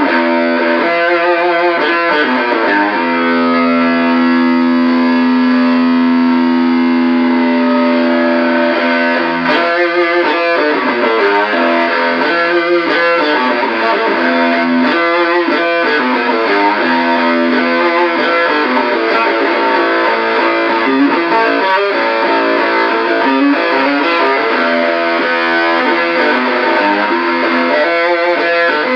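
Electric guitar played through a 1458 dual op-amp Muff Fuzz fuzz pedal into a guitar amp, giving a thick fuzz-distorted tone. About three seconds in, one note is held for around six seconds, then quicker runs of notes follow.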